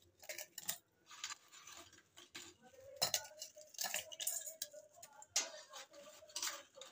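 Oreo biscuits being dropped and pressed by hand into a stainless-steel mixer-grinder jar: irregular light clinks and taps against the metal.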